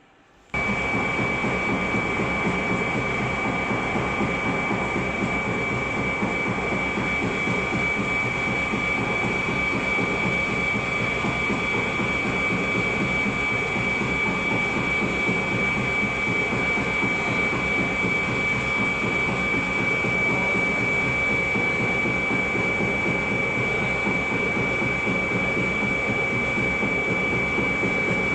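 Sawdust briquette machine running steadily, a loud even mechanical noise with a steady high whine, starting abruptly about half a second in.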